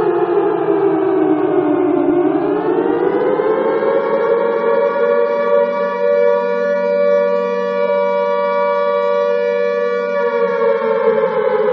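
Alarm siren wailing in one long cycle. Its pitch falls through the first two seconds, climbs over the next few, holds steady for about five seconds, and starts falling again near the end.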